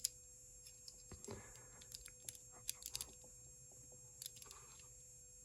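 Faint, scattered clicks from handling a small combination TSA luggage lock, about half a dozen over a few seconds, against near silence.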